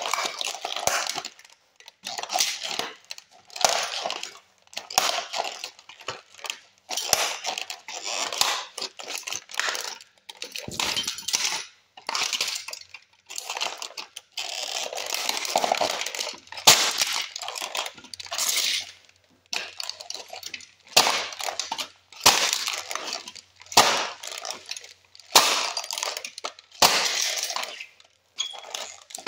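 Die-cast toy cars being stomped flat on a concrete floor under a foot shod with a taped-on toy car body: a steady series of crunches, cracks and metallic clinks as the car bodies and parts break, about one stomp every second or so.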